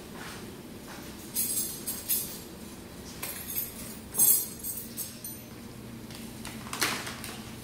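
Stainless steel surgical instruments clinking against each other and the wire-mesh instrument tray as they are handled: a handful of sharp metallic clinks, the loudest about four seconds in.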